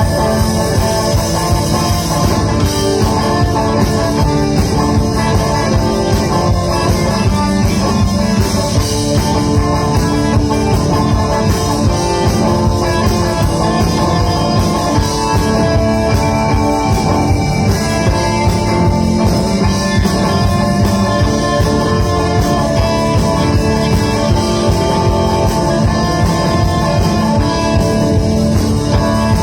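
Live rock band playing an instrumental passage with guitar and drum kit, no singing.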